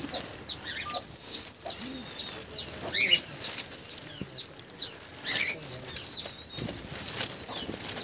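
Aviary birds calling: a small bird gives high, downward-slurred chirps over and over, two to three a second. Two louder calls from other birds come about three seconds in and again just past five.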